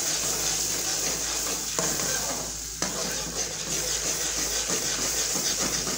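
Spoon stirring and scraping a spice masala of chilli powder, ginger-garlic paste and ground spices as it fries in oil in a karahi, with steady sizzling. The sizzle drops briefly a little before halfway, then carries on.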